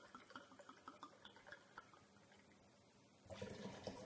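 Red wine glugging from a bottle into a drinking glass, a quick run of faint gurgling ticks that dies away about two seconds in. Near the end the glassful of wine is tipped into a pot of sugar syrup with a short, louder splash.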